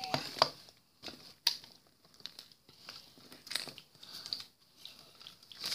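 Handling noise of small plastic craft-kit parts: rustling with scattered light clicks as a piece is pushed and fitted onto another.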